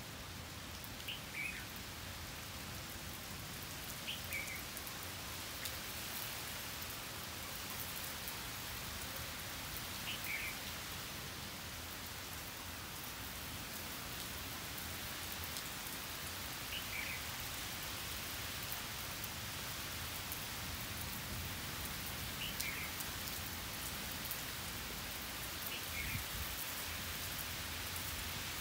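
Steady rain falling on surfaces outdoors. A short, high two-note chirp that drops slightly in pitch sounds six times over it, every few seconds.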